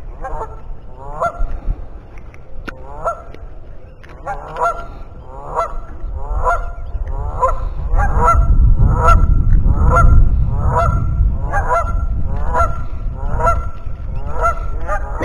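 A goose honking over and over, short honks a little faster than one a second. A low rumble swells in the middle.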